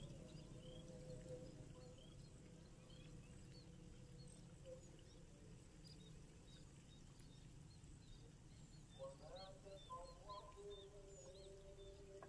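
Faint open-air ambience: scattered short, high bird chirps over a low steady background. About three-quarters of the way through, faint held pitched tones join in.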